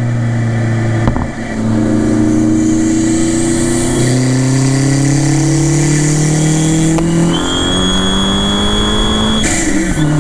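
Fiat 500 Turbo's 1.4-litre turbocharged four-cylinder accelerating at full throttle, the engine note climbing steadily with short breaks at the gear changes. A high turbo whistle comes in about two-thirds of the way through, and a short rush of air comes at the last shift near the end.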